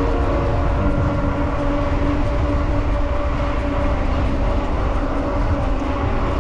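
Steady wind rumble on an action camera's microphone while riding a bike, under background music of held notes that change pitch every second or two.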